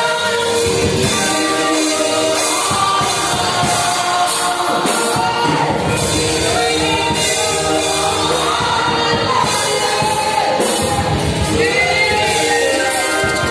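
Live gospel praise music: a group of voices singing over keyboard and drums, with a steady percussion beat.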